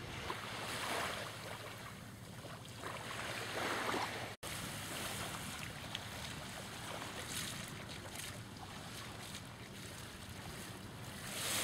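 Outdoor beach ambience: wind blowing on the microphone over small waves washing on the sand, in slow swells of noise. The sound drops out for an instant about four seconds in.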